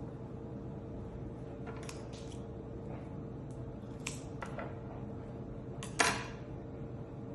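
Handling of paper and craft materials: a few scattered light taps and rustles, the loudest about six seconds in, over a steady background hum.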